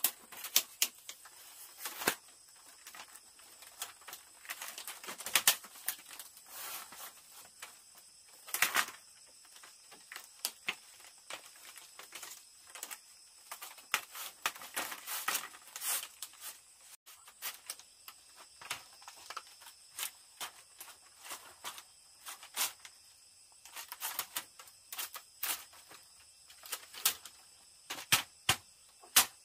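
Irregular sharp knocks and cracks of bamboo being struck and worked by hand, settling into regular chopping blows about twice a second near the end.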